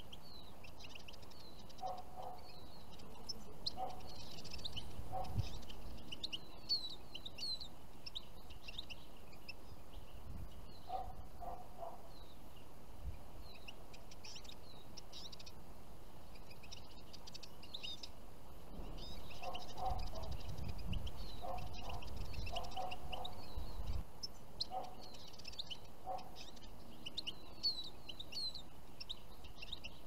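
Small finches, Eurasian siskins and European goldfinches, twittering and chirping in short high calls around a songbird trap cage, with two stretches of low rumble partway through.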